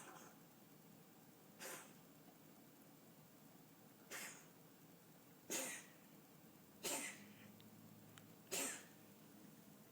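A cat coughing during a feline asthma attack. There are about six short hacks one to two seconds apart, and the last three are the loudest.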